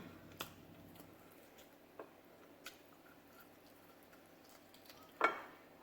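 Quiet chewing with a few faint mouth clicks, then a short louder noise about five seconds in.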